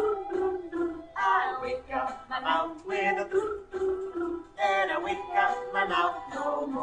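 Several voices, women's and men's, singing a children's song together in a steady, bouncing rhythm.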